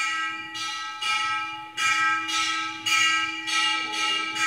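Bell-like metallic strikes repeating about twice a second, each ringing on over a steady low hum.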